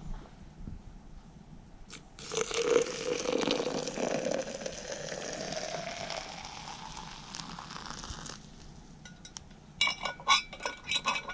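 Water poured from a stainless steel camp pot onto coffee grounds in a smaller pot, for about six seconds, its pitch rising as the pot fills. A few light clinks near the end.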